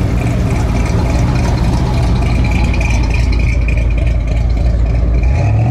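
Early-1960s Chevrolet sedan's engine running with a steady low rumble as it rolls slowly past close by at low speed.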